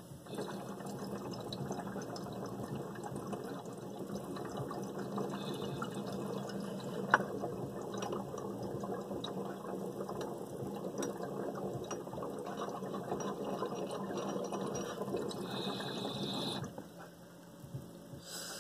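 Water bubbling in a small glass dab rig as a long hit is drawn through it, a rapid crackly gurgle that stops about sixteen seconds in. A single sharp click of glass comes about seven seconds in.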